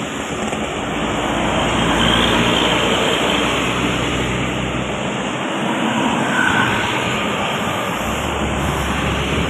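Road traffic passing close by: a steady mix of engine rumble and tyre noise from moving vehicles, with no horn sounding.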